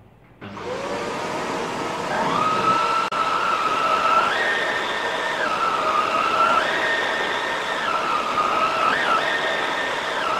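Shark Rotator upright vacuum switched on about half a second in, its motor spinning up with a rising whine. It then runs with a whine that steps up and down in pitch every couple of seconds as it is pushed and pulled over shag carpet.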